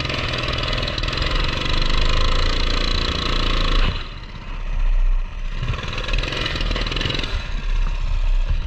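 Coleman CT200U mini bike's single-cylinder four-stroke engine running under load. Its speed drops about four seconds in, picks up again, then falls off again a little past seven seconds. The rider says the weird clutch problem is still there.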